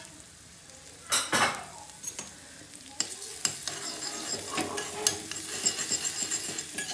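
Minced garlic sizzling in hot ghee in a small tadka pan, stirred with a steel spoon that clicks and scrapes against the pan. There is a sharp knock about a second in, and the sizzle and spoon clicks grow busier from about three seconds.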